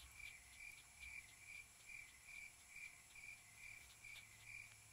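Quiet cricket chirping, soft even chirps a little over two a second: the stock crickets sound effect for an awkward silence.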